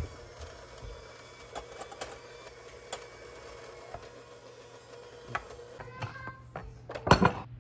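Electric hand mixer running steadily, its beaters creaming softened butter in a glass mixing bowl, with scattered clicks and a louder clatter near the end.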